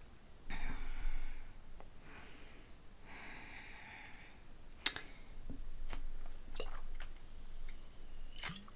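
A woman breathes out twice, heavily, between sips of soda, the second breath longer than the first. Then come several sharp little clicks and taps, spaced about a second apart.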